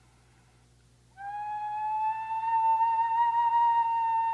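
Iwabue, a two-holed Japanese stone flute, blown to sound one long, clear, whistle-like note. The note starts a little over a second in, after near silence, and creeps slightly upward in pitch as it is held.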